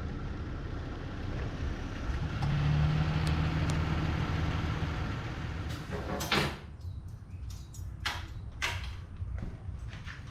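Wind and rain buffeting the microphone in a continuous rushing noise. About six seconds in it cuts abruptly to a quieter background with scattered knocks and clatters.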